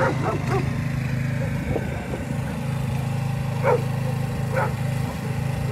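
Dogs barking: a quick run of short barks at the start, then two single barks about a second apart in the second half, over a steady low engine hum.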